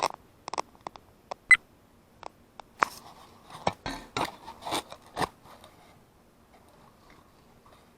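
Small hard objects being handled, a string of sharp clicks, taps and light clatter, one with a brief metallic ring, settling down for the last couple of seconds.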